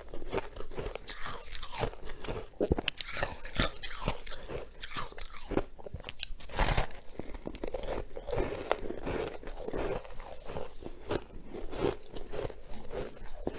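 Close-up crunching and chewing of freezer frost in the mouth: many irregular, crackly bites and chews with no break.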